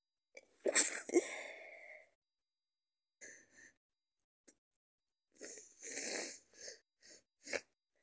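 A person with a cold sneezes once, loudly, about a second in, then takes a few short, noisy breaths near the end.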